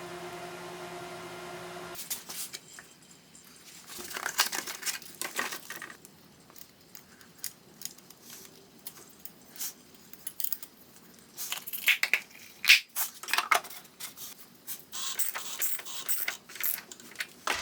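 Irregular clinks, clicks and scrapes of hand tools and metal parts being handled. A steady mechanical hum cuts off about two seconds in.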